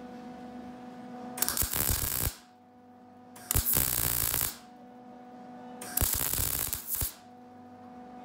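MIG welder laying three short tack welds on the sheet-steel seam between quarter panel and roof, each burst about a second long with brief pauses between.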